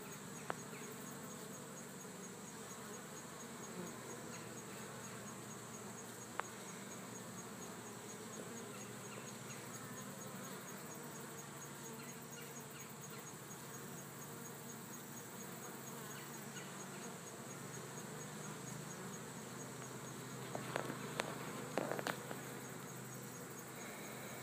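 Honey bees buzzing at a hive entrance: a steady hum of many wings as foragers fly in and out. A few sharp clicks, with several in quick succession near the end.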